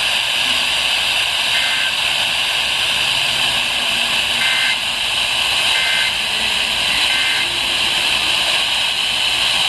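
Radio receiver static, a steady loud hiss, with four short EAS end-of-message data bursts (two-pitch digital squawks) buried faintly in it: about a second and a half in, then around four and a half, six and seven seconds. This marks the close of an emergency alert transmission.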